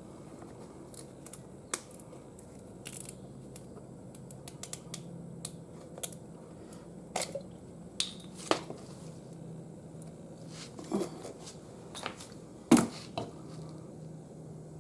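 Scattered light clicks and knocks of oil-change parts being handled by hand, over a faint steady low hum. The clicks come more often in the second half, and the loudest knock comes near the end.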